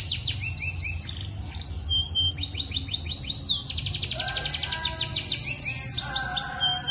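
Canaries singing in fast trills of rapid, high down-sweeping notes, repeated in long runs, with background music joining about two-thirds of the way through.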